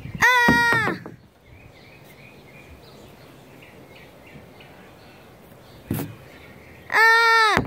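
A crow cawing twice, two loud drawn-out caws about six seconds apart, over steady outdoor background noise with faint distant bird chirps.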